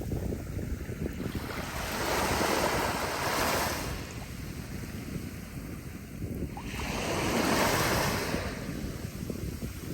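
Ocean waves breaking on a beach, two waves washing in about four seconds apart, each swelling into a hiss and fading, over a steady low rumble of wind on the microphone.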